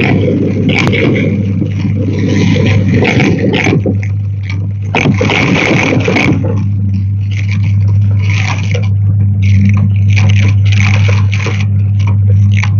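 Hoover vacuum cleaner running, a steady motor hum with a rushing hiss of air that swells and fades every second or so.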